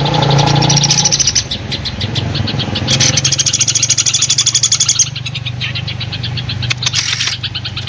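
Eurasian tree sparrows chirping in a dense, continuous chorus mixed with rapid repeated high call notes, packed tightest in a fast run through the middle. A steady low hum runs underneath.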